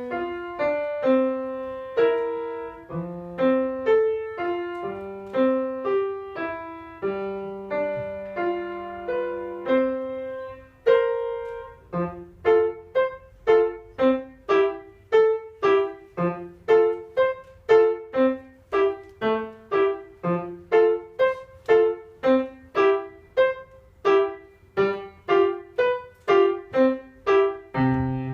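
Piano played by a five-year-old child: a slow melody over held bass notes, then about eleven seconds in a change to a quicker, even run of short detached notes.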